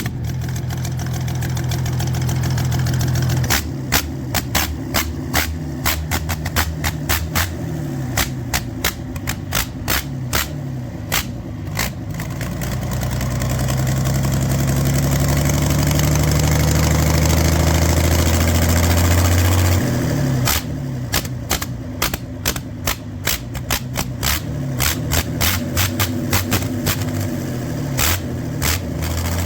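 Freshly overhauled Doosan diesel engine running on its test after reassembly. It slowly revs up over several seconds in the middle and then drops back suddenly to a lower speed, with many sharp clicks or knocks sounding over it before and after the rev.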